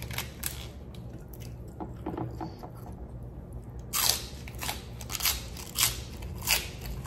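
Crisp romaine lettuce leaf being bitten and chewed: loud crunches about every half second, starting about four seconds in, after a few faint crackles.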